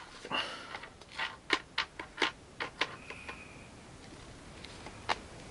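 Blue plastic toy bag being handled and unrolled: irregular small clicks and crinkles, most of them in the first three seconds, with a single click near the end.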